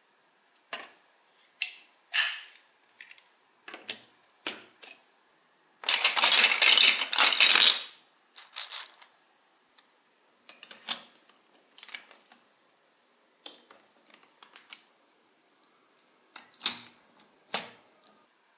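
Plastic toy building blocks being handled and pressed together: scattered sharp clicks and clacks, with a louder rattling clatter lasting about two seconds about a third of the way in.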